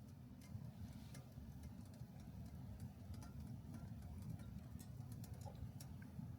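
Faint, irregular crackles of a wood fire burning in a small Mt.SUMI Micro wood stove, over a low steady rumble.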